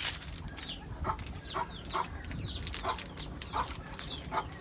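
Chickens clucking: short calls come about every half second, with high, falling chirps among them, over a low steady rumble.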